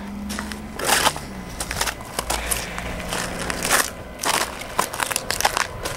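Footsteps crunching on packed snow and ice, a crisp crunch with each step at an irregular walking pace.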